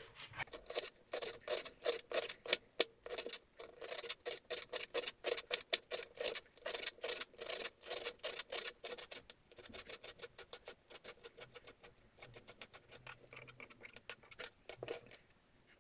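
Kitchen knife chopping green onions finely on a wooden cutting board: a quick, even run of knife taps on the board, getting lighter in the last few seconds.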